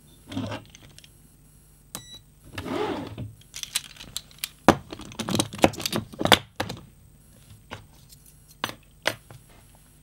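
Steel handcuffs being handled: a run of metallic clinks and clacks from the cuffs and their swivel chain, busiest around the middle, then a few scattered clicks.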